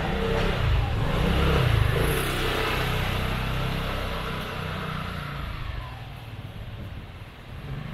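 A motor vehicle's engine passing close by, loudest about two seconds in and then fading away.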